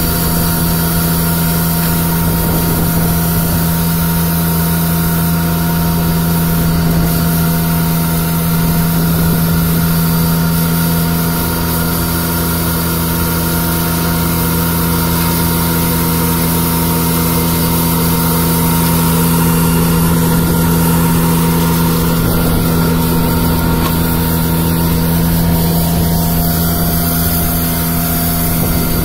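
Ranger MN-F2000 diesel vacuum street sweeper running while it sweeps, its engine and suction fan giving a steady, unchanging hum with a strong low tone over a hiss of noise.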